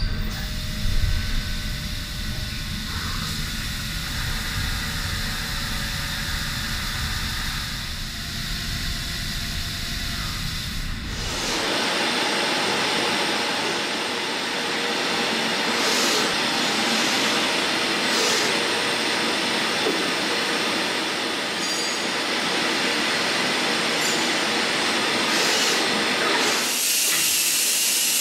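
Zuse Hüller Hille NBH horizontal machining centre running. For about the first eleven seconds there is a low rumbling machine noise with faint steady whines. It then changes suddenly to a steady high hiss, which shifts again near the end.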